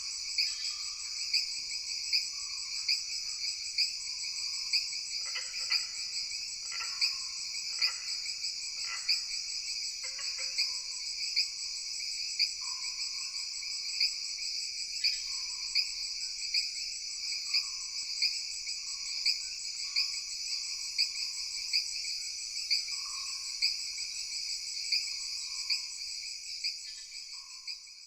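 Forest ambience at night: a dense, steady chorus of trilling insects, pulsing louder about once a second, with short lower animal calls scattered through it. It fades out near the end.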